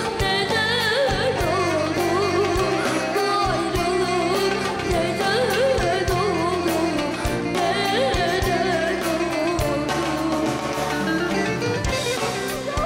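A high voice singing an ornamented melody with wavering pitch, over instrumental accompaniment with strings.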